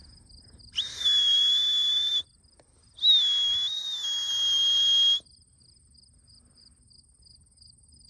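Two long, steady, high-pitched whistles, the second slightly longer with a small step in pitch, over crickets chirping.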